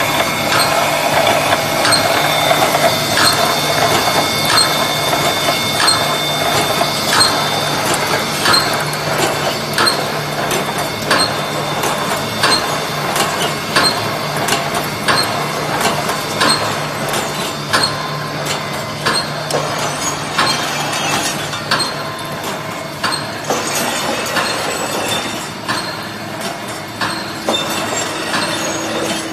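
Automatic brick force wire mesh welding machine running: a steady hum under regular mechanical clacks, about three every two seconds, as the welding head and wire feed cycle.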